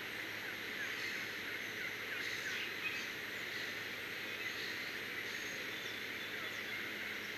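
Outdoor dawn ambience: many short songbird chirps and calls scattered over a steady background hiss.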